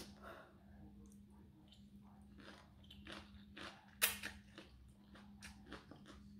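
A person chewing and slurping rice noodles in curry sauce, with wet mouth noises throughout and one loud, short slurp about four seconds in. A faint steady hum sits underneath.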